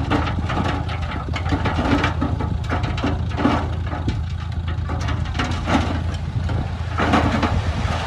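Heavy machine's diesel engine running steadily, with irregular clanks and knocks over it every second or two.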